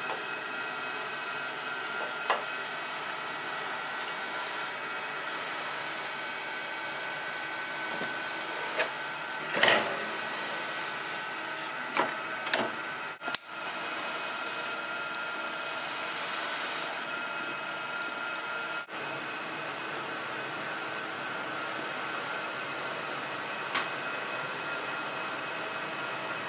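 Steady hiss and hum of shoe-repair workshop machinery running, with a few light clicks and knocks of work on the boot heel.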